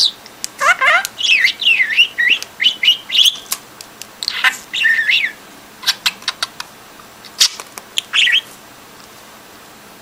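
Pet budgerigar chattering in quick, close chirps and gliding whistled notes, mixed with a few sharp clicks. The chatter stops about a second and a half before the end.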